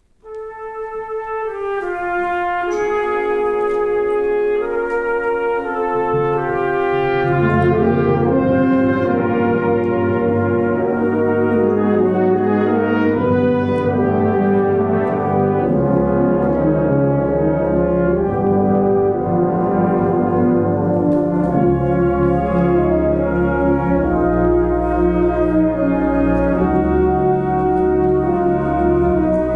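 Brass band of cornets, trombones, euphoniums and tubas beginning a hymn arrangement, starting out of silence in the upper parts. The low brass comes in about six to seven seconds in and the sound grows fuller and louder.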